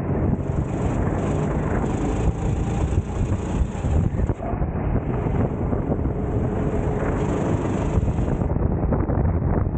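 Onboard sound of a racing kart at speed: the kart's engine running under heavy wind buffeting on the camera microphone. A high hiss sits over it, breaking off briefly about halfway through and stopping near the end.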